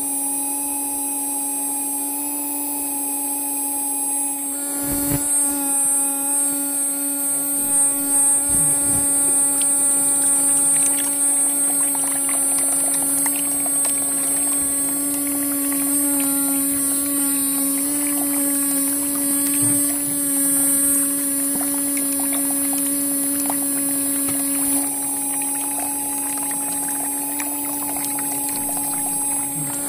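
Small DC motor water pump running with a steady whine, fed from a 12 V step-down transformer. About five seconds in its note gets a little louder and rougher.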